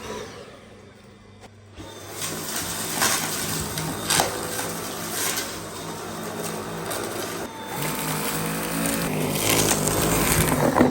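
Dyson V8 cordless stick vacuum running: a steady motor hum sets in about two seconds in, with scattered sharp clicks and rattles, growing louder near the end.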